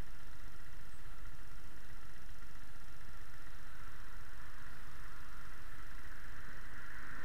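Steady low rumble of a motorcycle engine idling, with a constant hiss over it.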